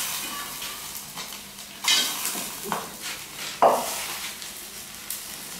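Food frying and sizzling in a metal pot, with a utensil stirring and scraping against it. Three sharp metal clanks come about two, three and four seconds in.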